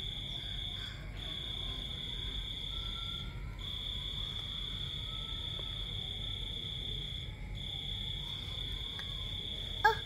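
Night insects trilling: one steady, high trill that breaks off briefly three times, over a fainter, lower steady tone and a low background rumble.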